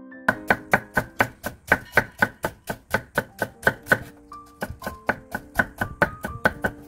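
Kitchen knife rapidly chopping shredded cabbage on a wooden cutting board, about four chops a second, with a brief pause about four seconds in.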